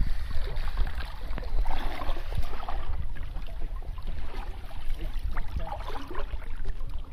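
Shallow pond water sloshing and dripping as people wade and lift a bamboo polo fish trap out of it, over a steady low rumble.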